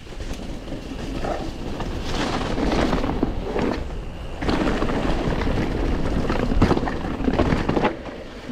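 Mountain bike rolling fast down a dirt jump trail: tyre and rattling noise from the bike, building over the first couple of seconds as it picks up speed. There is a brief lull about four seconds in, and the noise drops near the end.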